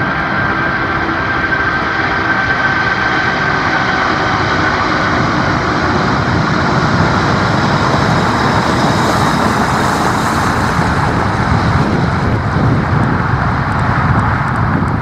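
Qantas Boeing 747-400's four Rolls-Royce RB211 engines at takeoff power, making a loud, steady jet roar. A fan whine fades over the first several seconds, and a deeper rumble builds through the second half.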